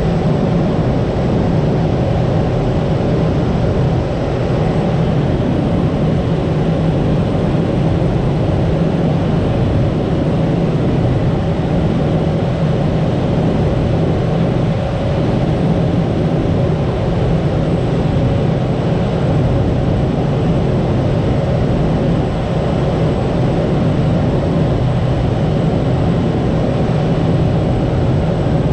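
Cessna 208 Grand Caravan's PT6A turboprop engine and propeller running in a steady, loud drone, with a thin high whine held throughout.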